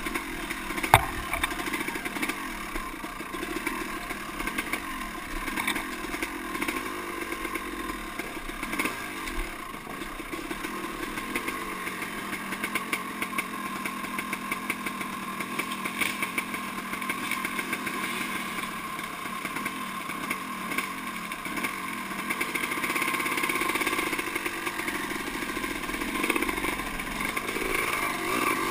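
Dirt bike engine running at low, uneven throttle on a slow ride over a rough trail, with frequent knocks and rattles; the engine gets somewhat louder near the end.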